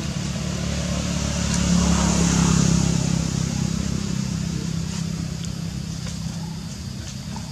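A motor vehicle's engine passing by, its hum growing louder to a peak about two to three seconds in and then slowly fading away.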